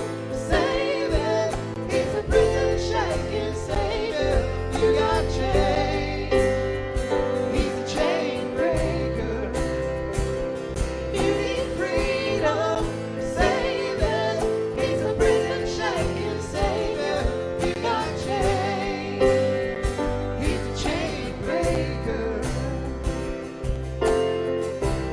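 A song with a singing voice over instrumental accompaniment, the voice wavering in pitch over steady held notes.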